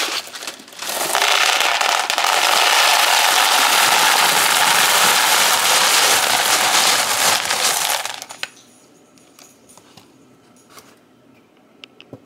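LECA expanded clay pebbles poured from a bag into a plastic bowl: a loud, steady rattling rush that starts about a second in and stops about eight seconds in, followed by a few faint clicks.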